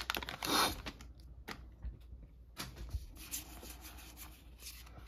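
Trading cards slid out of a torn foil booster pack and then shuffled through by hand: a rustle of the wrapper about half a second in, then softer rubbing and sliding of card stock.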